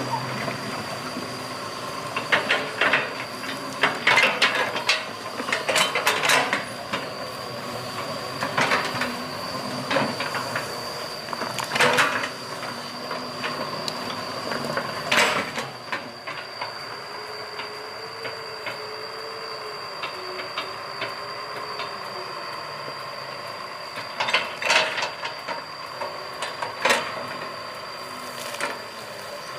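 Excavator at work: a steady high whine under irregular sharp clanks and knocks, with a wavering hum in a quieter stretch in the middle.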